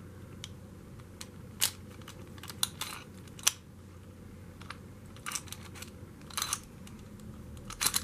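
A stainless steel disc padlock and its tubular key being handled: scattered light metal clicks and taps as the key and lock knock together, the sharpest about three and a half seconds in and a cluster near the end.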